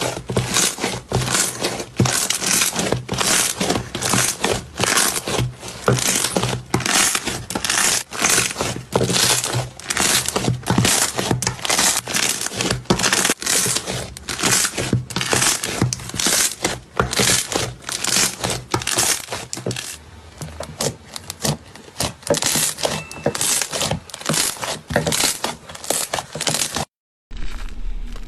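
Slime being squeezed and pressed by hand, giving a rapid run of crackling, popping pops, about three or four a second. It cuts off suddenly near the end.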